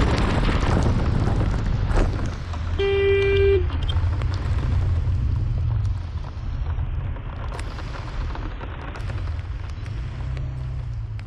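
Wind buffeting the microphone of a scooter-mounted action camera while riding, over road and traffic noise. A vehicle horn beeps once, for under a second, about three seconds in.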